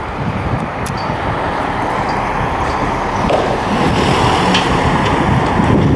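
Street traffic noise, with a cab-over dump truck's engine and tyres growing louder as it passes close by in the second half.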